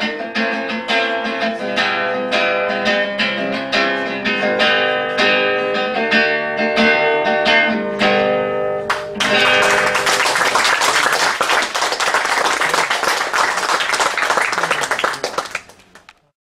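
Acoustic guitar fingerpicked, a run of separate notes. After a sharp strike about halfway through, it gives way to a loud, dense, noisy rattle with no clear notes, which fades out near the end.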